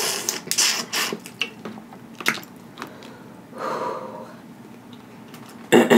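Wet sucking and slurping as the juice is sucked from a boiled crawfish head. It is followed by chewing with a few sharp mouth clicks, and a short loud vocal sound just before the end.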